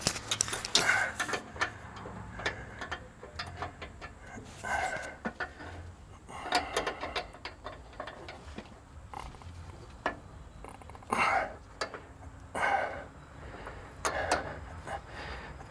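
Scattered clicks, clinks and short rasping bursts of hand tools and metal parts being worked on truck suspension fittings, in irregular bouts a second or so apart.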